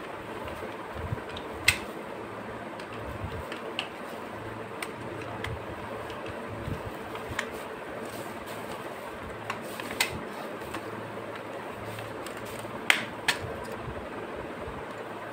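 Hard plastic toy shell parts clicking and knocking as they are handled and fitted together. There is a sharp click about two seconds in, another about ten seconds in, and two in quick succession near the end. A steady hum runs underneath.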